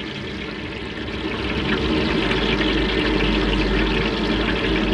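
Steady rushing hiss of the burner under a large aluminium pot of refined oil that is heating up, growing louder about a second and a half in.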